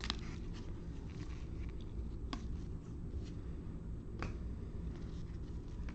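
Trading cards being handled and flipped through by hand, giving a few faint clicks and snaps over a steady low background hum.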